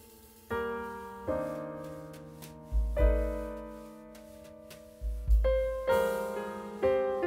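Background piano music: chords struck one after another and left to fade, with deep bass notes under two of them.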